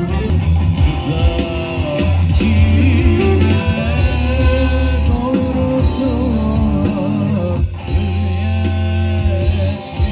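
Live band music: a male singer singing over electric guitars and bass guitar.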